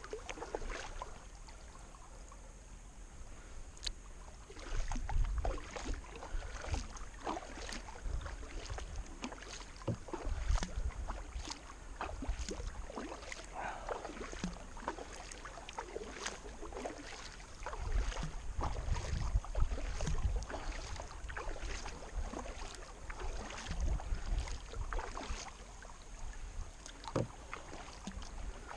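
Kayak being paddled: a run of short splashes and drips as the paddle blades dip and lift from the water, with spells of low rumble in between.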